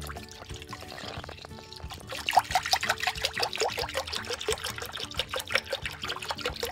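Almond milk poured from a carton into a pan of melted butter. A quiet stream turns, about two seconds in, into a rapid run of gurgles and splashes as the carton glugs.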